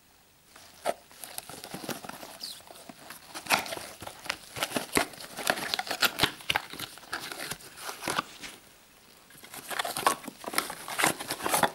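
Cardboard box of a welding-wire spool being handled and opened in gloved hands: irregular crinkling and crackling of cardboard and packaging, with a short pause about two-thirds of the way through.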